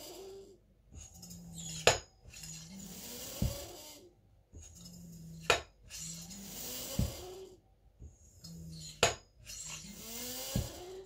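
Hill MK4 hand pump for PCP air rifles being worked in slow full strokes: each stroke brings a rush of hissing air, a sharp metallic click and a dull thump, repeating about every three and a half seconds, three times over.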